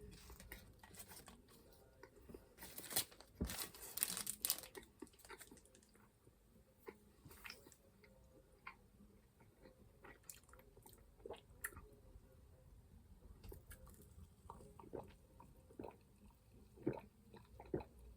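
A person chewing and crunching a chocolate lollipop, with a run of louder crunches about three to four seconds in, then scattered faint chewing clicks.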